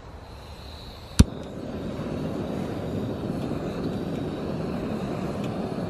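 Soto Windmaster gas canister stove being lit: one sharp click of its piezo igniter a little over a second in, then the burner catches and runs with a steady rushing sound under a pot of water.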